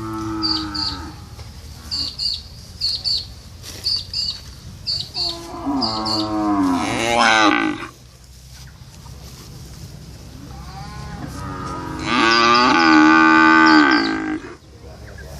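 Cattle mooing. One moo tails off at the start, a long moo about six seconds in rises in pitch at its end, and after a fainter one a long, loud moo comes about twelve seconds in. Short high chirps repeat in the background.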